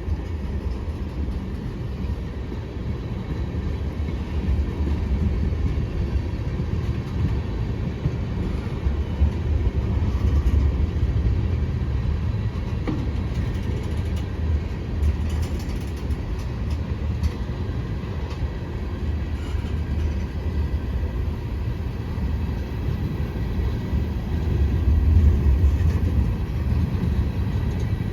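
Freight train cars rolling past at track level: a steady low rumble with wheel clatter, swelling slightly a few times.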